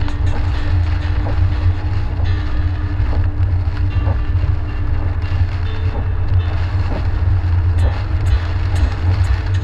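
Steady low rumble of a car driving, heard from inside the cabin: tyre and engine noise on a rain-wet road, with a faint steady hum and a few light ticks near the end.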